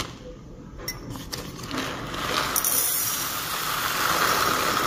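A few light clicks, then from about two seconds in a steady dense rattle of unroasted Yellow Caturra green coffee beans pouring from a plastic bag into a glass jar.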